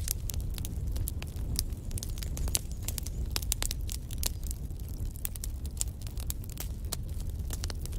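Wood fire burning in a fireplace: a steady low rumble with many sharp, irregular crackles and pops.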